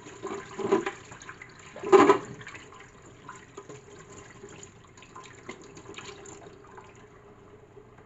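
Water heating in a pan of tamarind pods on the stove, with faint crackling and fizzing and two louder noisy bursts in the first two seconds.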